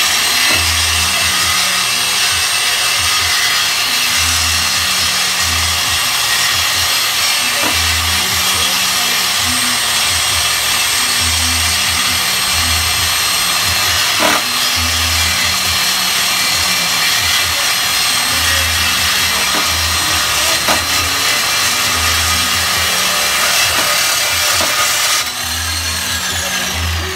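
Power saw cutting through a BMW's exhaust pipe during a resonator delete: a steady, harsh rasp that stops about 25 seconds in. Music with a repeating bassline plays underneath.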